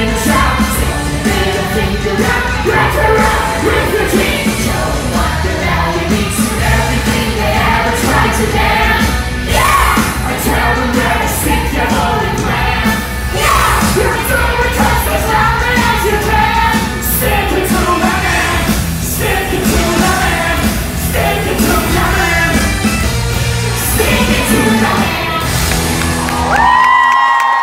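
Live rock band and singers performing a stage-musical number: electric guitar and drums under a lead vocal, with the cast singing and yelling along. About a second before the end the band cuts out and a single held note rings on.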